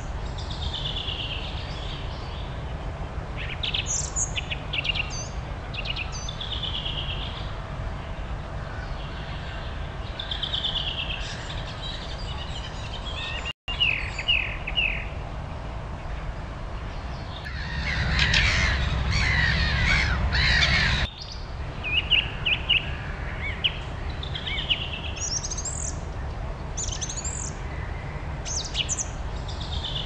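Wild birds singing and calling: short high phrases and trills come every few seconds, with a denser stretch of many overlapping calls for about three seconds past the middle. A steady low rumble runs underneath.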